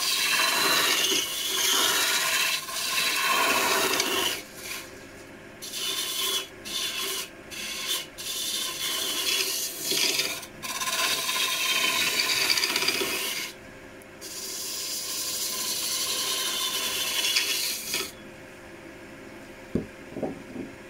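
Turning tool cutting a spinning wooden Indian club blank on a wood lathe: a hissing, rasping cut in bouts with short pauses, over the lathe's steady hum. The cutting stops a few seconds before the end, leaving the lathe running, and then comes a couple of knocks.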